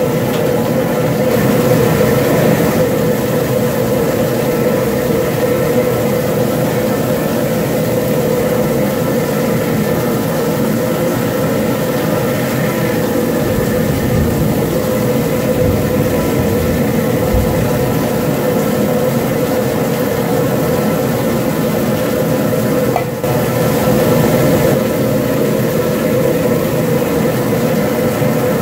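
Steady rushing noise of a propane burner under a large aluminum crawfish-boil pot of boiling water.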